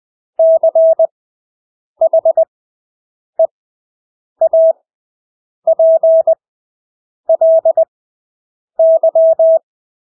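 Morse code (CW) practice tone: a single steady mid-pitched beep keyed into dots and dashes at 20 words per minute, with long Farnsworth gaps of about a second between characters. Seven characters are sent, one of them a single short dot.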